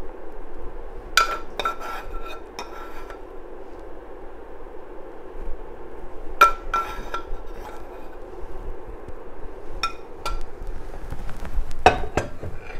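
Metal spoon clinking against a stainless steel skillet and plate as sauce is spooned out: a few separate sharp clinks with a short ring. There is a faint steady hum underneath, and a couple of knocks near the end.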